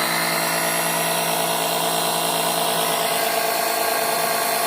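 Small electric pump motor running steadily with an even whine, drawing diesel through the fuel line to bleed air from the diesel fuel system before starting.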